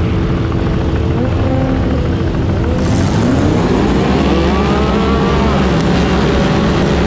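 A field of sport side-by-side UTVs held at the start line with engines running steadily, then launching together about three seconds in: several engines climbing in pitch at once as they accelerate, with a rush of wind and sand noise.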